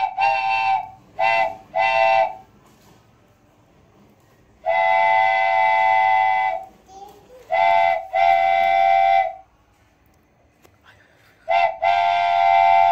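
A train-style horn sounding a chord of several steady tones in separate blasts: three short toots at the start, one long blast of about two seconds, then a short toot followed by a longer blast, twice.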